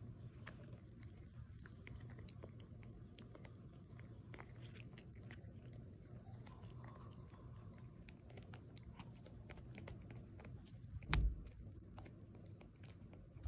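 Pomeranian gnawing and chewing a hard chew treat held in its paws: faint, irregular small clicks and crunches of teeth on the chew. A single louder thump about eleven seconds in.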